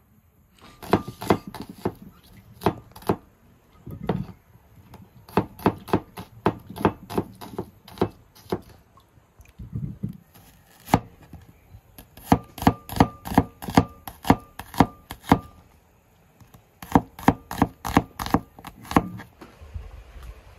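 Large kitchen knife chopping onion on a wooden cutting board: runs of sharp strikes, about three a second, in several bursts with short pauses between them.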